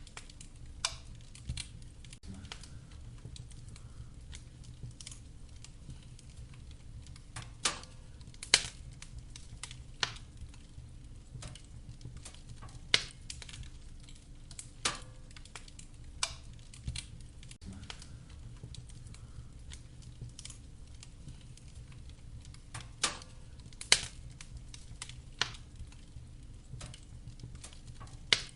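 Wood fire crackling in a fireplace: sharp, irregularly spaced pops and snaps, about a dozen, over a steady low rumble.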